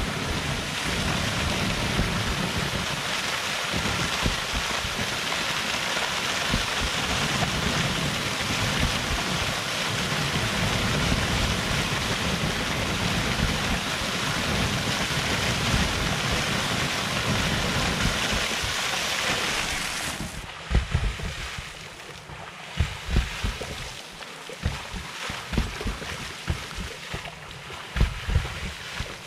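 Steady rushing water, with wind buffeting the microphone. About twenty seconds in, the rushing drops away and only irregular wind thumps remain.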